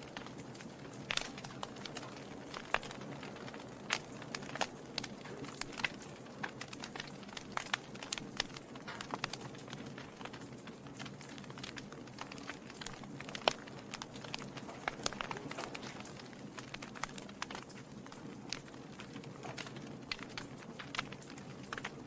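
Wood fire burning in a fireplace: a steady low rush of flame under frequent sharp crackles and pops from the burning logs, the loudest pop a little past halfway.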